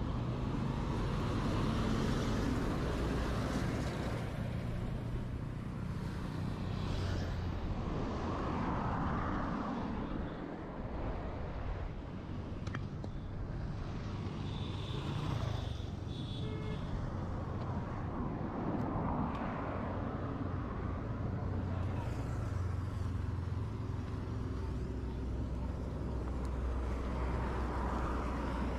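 Road traffic going past: vehicles swell and fade several times over a steady low rumble.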